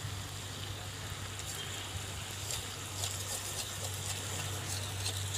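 Chicken frying in a metal kadhai over a wood fire as a spatula stirs it: scattered sizzling crackles, more frequent in the second half, over a steady low hum.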